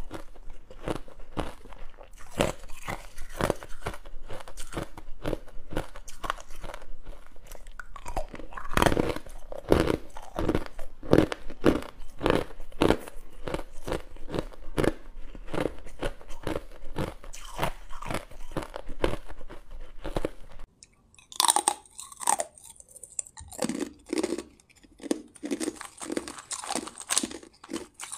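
Hard clear ice being bitten and chewed close to the microphone: a fast, dense run of sharp crunches as the ice breaks between the teeth. About three-quarters of the way through, it breaks off briefly, then the crunching starts again.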